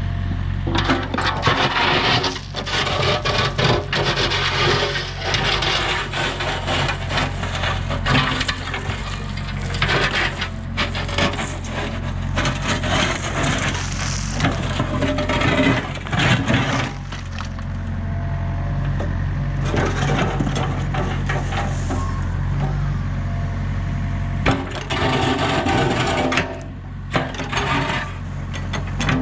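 Excavator engine running steadily while the bucket scrapes up and breaks broken concrete rubble, with many irregular cracks, knocks and grinding scrapes.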